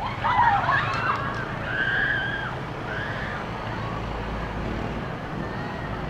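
Motorbike engine running in slow city traffic, with a steady low hum of engines and road noise. In the first two and a half seconds a few short, high-pitched sliding sounds rise and fall over it.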